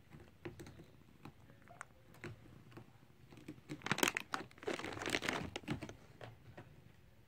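Rustling and crinkling handling noise: scattered soft clicks, then a dense burst of crinkling about four seconds in that lasts around two seconds.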